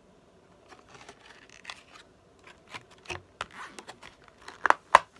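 Clear plastic display case and small serum bottles being handled: scattered rustling and light clicks, with two sharp clicks near the end.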